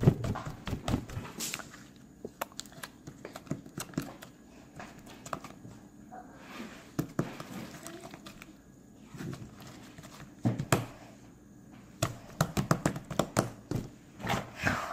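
Clear slime with small beads mixed in being squeezed, folded and stretched by hand, making irregular wet clicks and pops. The clicks are sparse in the middle and come in a quick flurry near the end.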